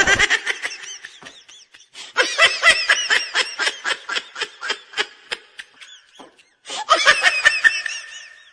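High-pitched laughter in three fits of quick, repeated pulses, the longest in the middle.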